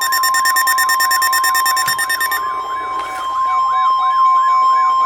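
Emergency alert tones: a steady single-pitched alarm tone, the weather radio warning alarm, layered with an electronic siren warbling up and down about twice a second and rapid electronic beeping that stops about halfway through, signalling that a warning is about to be broadcast.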